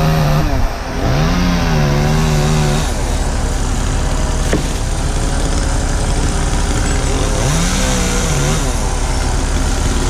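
Bucket truck's diesel engine running steadily underneath a chainsaw being revved in bursts: one at the start, a longer one held for almost two seconds from about a second in, and a short rise and fall near the end, as limbs are cut to clear access for the truck.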